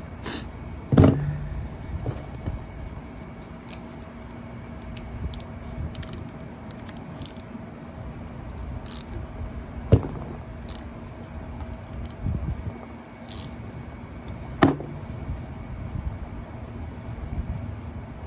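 Small metal hand tools and sockets clinking and rattling as a socket set is handled, with three sharp metal knocks: about a second in, about halfway through, and near the end.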